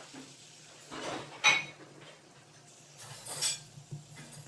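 Fidget spinners clinking twice with a short metallic ring, the louder clink about one and a half seconds in and a second one near the three-and-a-half-second mark, over a faint steady hum.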